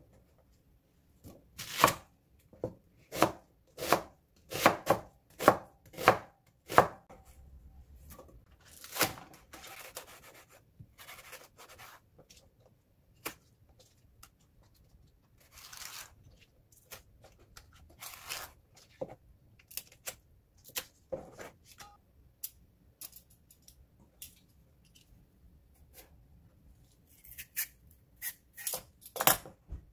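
Knife chopping green onion on a wooden cutting board. A run of sharp chops comes in the first seven seconds, then scattered single cuts, and a quick cluster of strokes near the end.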